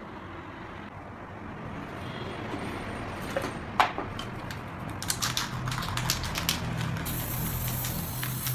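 An aerosol spray-paint can: a sharp click about four seconds in, then a quick run of rattling clicks as the can is shaken. About seven seconds in, a steady spraying hiss begins as paint is sprayed.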